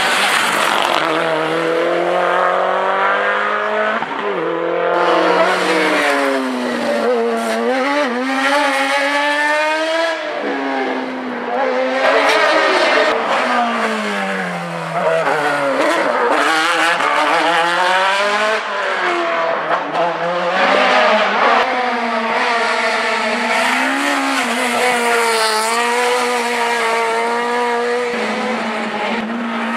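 Hill-climb race car engines revving hard through the gears. The pitch climbs again and again under acceleration, then drops on each upshift and under braking. It stays loud throughout.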